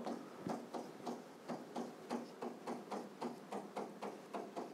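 Chalk writing on a chalkboard: a run of short, faint taps and scratches, several a second and a little uneven, one for each handwriting stroke.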